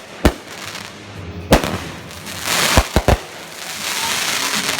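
Fireworks going off: a string of sharp bangs, three of them in quick succession about three seconds in, with a crackling hiss between them.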